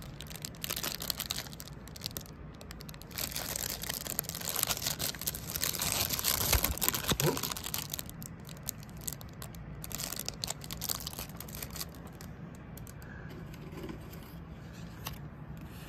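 Clear plastic wrapping around a ball ornament crinkling and crackling as it is handled, busiest for a few seconds in the middle and quieter afterwards.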